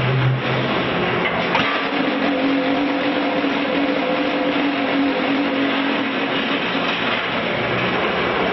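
QTJ4-25 automatic concrete block machine running with a steady, loud mechanical din. A humming tone comes in about two seconds in and stops about seven seconds in.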